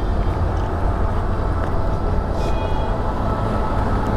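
Steady low rumble of a moving road vehicle: engine and road noise, with a brief faint high tone about halfway through.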